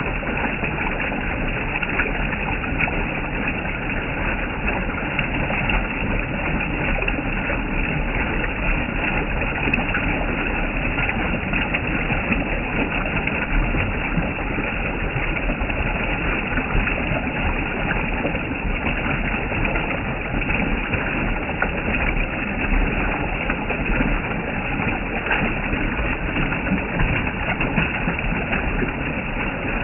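Waterfall rushing: a steady, unbroken noise of falling water with no change in level.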